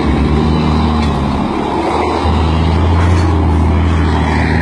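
Heavy diesel truck engines running hard under load as one truck tows another out of soft sand. A steady low drone deepens and grows louder about two seconds in, as the pull takes hold.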